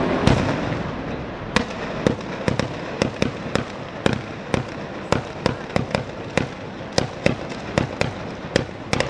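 Ligurian mortaletti, small black-powder mortars fired in a chain along the ground, going off as a rapid, uneven series of sharp bangs. After a single bang at the start and a short lull, they pick up to roughly three bangs a second.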